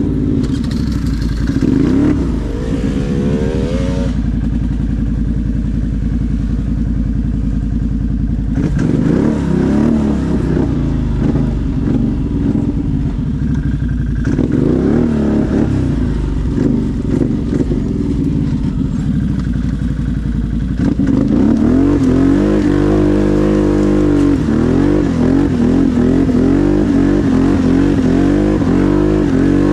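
ATV engine running under load, its revs rising and falling again and again as the throttle is worked. It gets louder about two-thirds of the way through.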